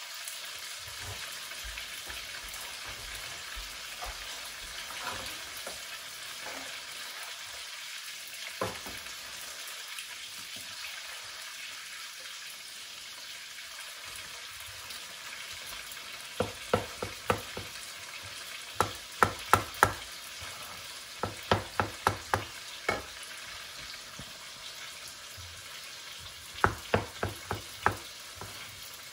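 Steady sizzle of cooking oil frying in a pot on the stove. From just past halfway it is joined by runs of quick, sharp knocks: a chef's knife slicing shiitake mushrooms against a plastic cutting board.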